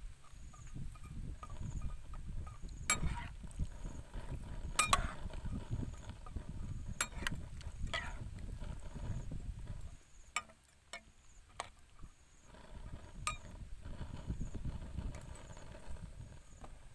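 Metal spatula stirring vegetables in water in a pan, with scattered sharp clinks of the spatula against the pan, over a low rumble that fades out about ten seconds in and returns a couple of seconds later.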